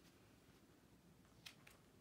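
Near silence: room tone, with two faint short clicks about a second and a half in.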